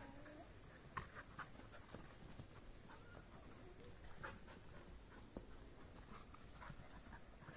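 Faint scattered thuds and taps of dogs running on a grass lawn as they chase a flirt-pole lure, the sharpest thud about a second in.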